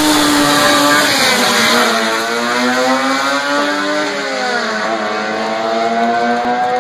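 Two hatchbacks' engines at full throttle down a drag strip, one of them a Honda Civic EF's swapped B20 VTEC four-cylinder. The pitch climbs, drops sharply at each of several gear changes, then climbs again, easing off a little as the cars pull away.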